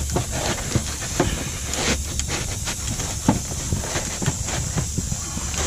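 Stiff 30-pound roofing felt (tar paper) rustling and crackling as it is pushed and tucked by gloved hands, with many short scrapes over a steady hiss.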